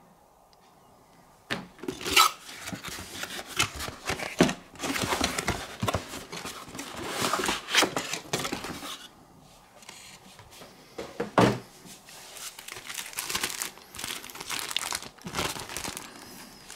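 Unboxing packaging crinkling and rustling in irregular bursts as it is handled and opened, starting about a second and a half in, with a couple of sharper, louder crackles.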